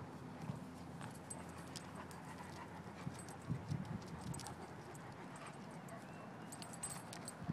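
A large dog panting faintly as it walks on grass, with light scattered clicks and jingles through it.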